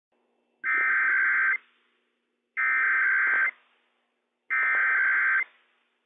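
Emergency Alert System SAME header on NOAA Weather Radio: three identical bursts of buzzing digital data tones, each about a second long and about a second apart. They carry the encoded Required Weekly Test message that opens the alert.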